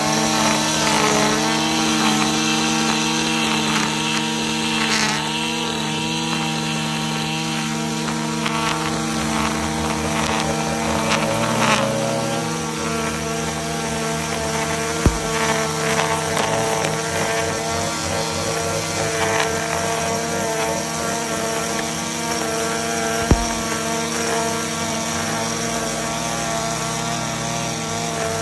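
String trimmer turned vertical and run steadily at high speed, its spinning line cutting a sharp edge into the soil along the lawn. Two sharp clicks stand out, about midway and some eight seconds later.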